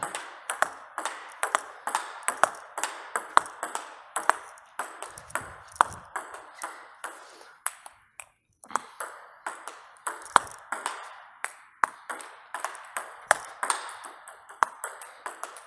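Table tennis rally: the plastic ball clicks sharply off the table and the bats in a quick, steady back-and-forth, with backhand strokes off a DHS Hurricane 3 Neo rubber. Play briefly pauses about eight seconds in, then the rally picks up again.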